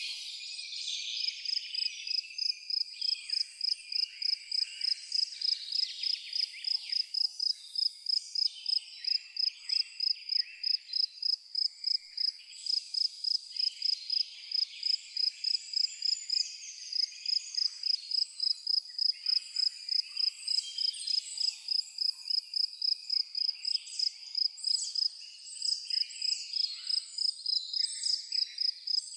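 A cricket chirping steadily in a high, even pulse about two to three times a second, with songbirds chirping and twittering over it.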